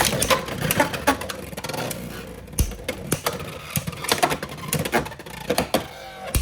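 Beyblade X spinning tops battling in a plastic stadium: a dense, irregular rattle of clicks and clacks as the tops strike each other and the stadium, over a faint steady spinning whir.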